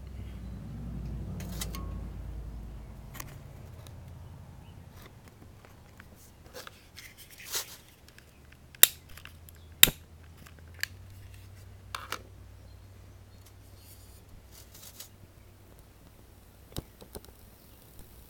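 Sharp clicks of a long-reach lighter being fired to light an alcohol stove, two loud ones about a second apart near the middle, among scattered smaller clicks and handling knocks.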